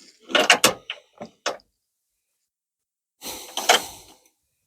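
Hand tools clinking and knocking: several sharp clicks in the first second and a half, then a short clatter about three seconds in, as a socket is tried on a radius rod bush plate bolt that needs a deeper socket.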